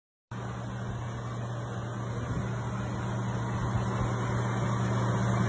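A brief silence, then the steady roar of a flooded river's fast brown torrent, growing gradually louder, under a constant low hum.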